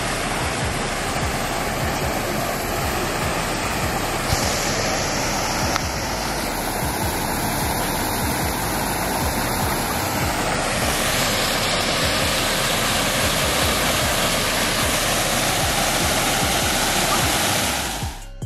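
Steady rush of water pouring from a carved stone waterfall into a swimming pool, cutting off suddenly near the end.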